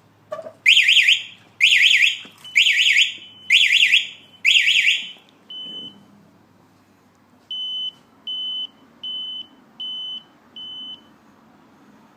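Motorcycle alarm siren sounding five loud, rapidly warbling blasts in quick succession, followed by a single steady beep and then a row of five short steady beeps.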